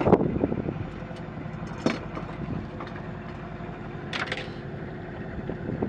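Boat engine idling steadily, with two short knocks about two seconds and four seconds in.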